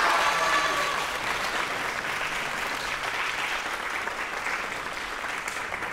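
Audience applauding steadily, with the last notes of orchestral music dying away in the first second.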